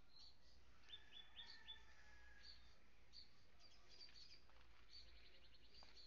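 Faint chirping of small birds: short high calls repeating, a quick series of four notes about a second in, and fast trills in the last couple of seconds.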